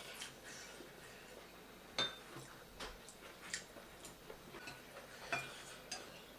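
Scattered light clicks and clinks of cutlery against a plate during a meal, the loudest about two seconds in with a short ring.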